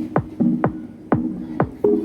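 Electronic dance music: a deep kick drum that drops in pitch on each hit, about twice a second, over a held synth chord.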